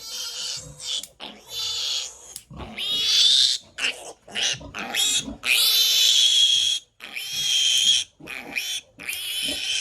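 Piglet screaming in fright while being held for teeth clipping: a run of loud, high-pitched squeals, each under a second or so, with short gaps between them.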